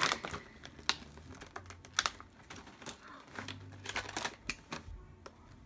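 Irregular clicks and crackles of the stiff plastic blister packaging of a Shopkins Season 4 five-pack being pried open and handled.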